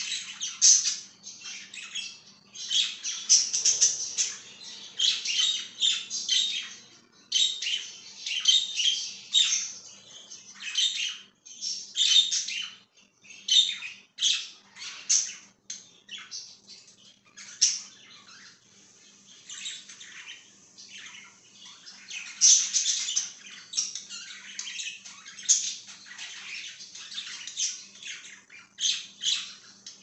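A flock of budgerigars chirping and squawking, many short calls overlapping one another throughout, with brief lulls.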